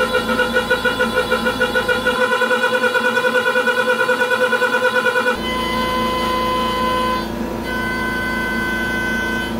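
Pocket NC v2-50 desktop CNC mill cutting 6061 aluminium, giving a steady whine that pulses rapidly. A little past halfway it switches abruptly to an even whine without the pulsing.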